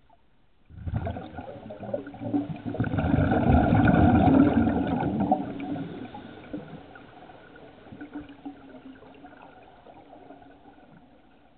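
A scuba diver's exhaled bubbles from the regulator, heard underwater: a rush that starts suddenly about a second in, is loudest around four seconds, then fades to faint bubbling.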